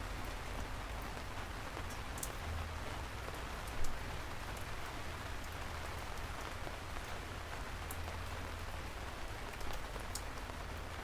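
Steady rain falling, an even hiss with scattered sharp drop ticks and a low rumble underneath, with one brief louder hit about four seconds in.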